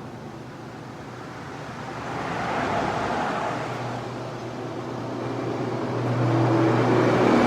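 Road traffic passing at 40-50 mph: tyre and engine noise from passing cars swells as one vehicle goes by about three seconds in, then builds again as another approaches near the end.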